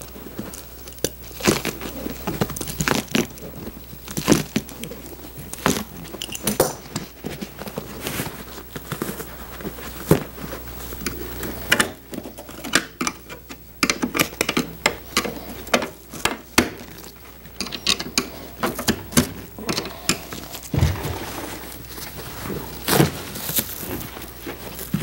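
Old, crumbling foam padding being cut and torn away from a bucket seat's metal spring frame with hand tools: irregular crackles, tearing, and clicks and scrapes of the tools and springs.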